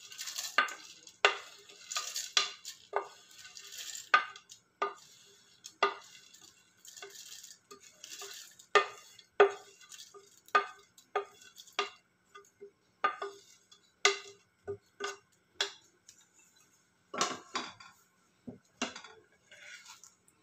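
Wooden spatula scraping and tapping on a ceramic plate as fried adamant creeper pieces drop into a steel mixer-grinder jar: an irregular string of clicks and knocks, about one or two a second, each with a faint metallic ring. A louder cluster of knocks comes near the end as the steel jar is handled.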